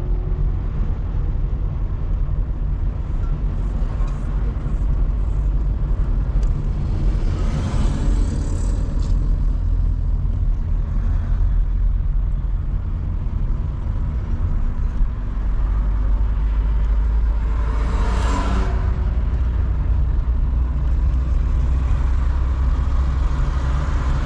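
A car driving along a street, heard from inside the cabin: a steady low rumble of engine and tyres, with a brief louder rush of noise about eighteen seconds in.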